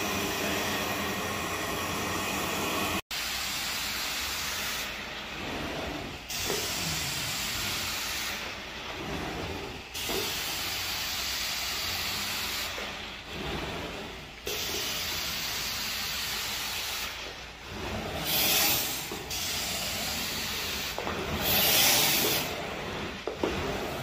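Rug-cleaning extraction machine running, its wand spraying and sucking with a steady hiss that breaks off briefly every three to four seconds as each pass ends. Two louder hissing surges come near the end.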